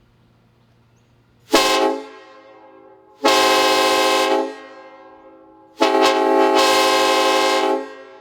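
Homemade PVC replica of a Nathan AirChime K5LLA five-chime train horn, its high bell retuned from B to C, sounding a chord in three blasts: a short toot, then a longer blast, then the longest. Each blast ends abruptly and leaves a fading echo.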